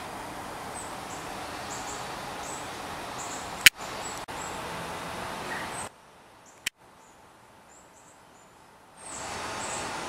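Outdoor yard ambience: a steady background hiss with faint, high chirps every second or so. There is a sharp click a little under four seconds in and another near seven seconds, and the background hiss drops away for about three seconds past the middle.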